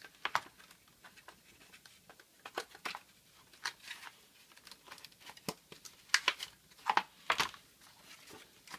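Irregular plastic clicks, knocks and crinkly rustling as a new humidifier filter is handled and pushed into its housing.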